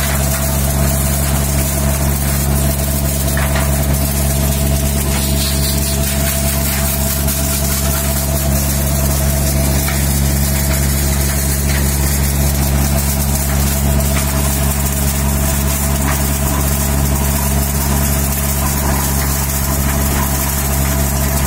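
Tractor-driven Kamdhenu maize thresher running steadily under load while shelling corn, with the steady drone of the 15 hp Kubota mini tractor's engine driving it. A few faint ticks over the drone.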